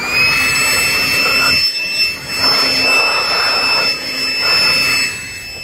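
Handheld electric blower aimed at close range: its motor spins up to a steady high whine while air rushes in gusts, then the pitch falls as it winds down near the end.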